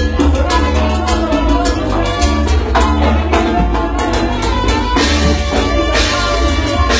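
Latin tropical dance music from a sonora-style band, with a heavy bass line and steady drum hits. A cymbal crash rings out about five seconds in.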